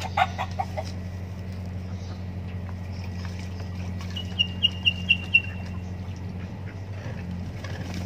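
Domestic chickens clucking: a quick run of clucks just after the start, then a row of five short, high, sharp calls about halfway through. A steady low hum runs underneath.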